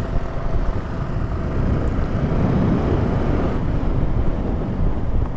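Motorcycle engine running while riding, with road and wind noise on the microphone; the sound grows a little louder about two seconds in.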